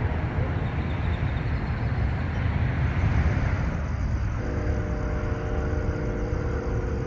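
Steady low rumble, then about four seconds in a distant train horn starts sounding a steady chord that holds to the end.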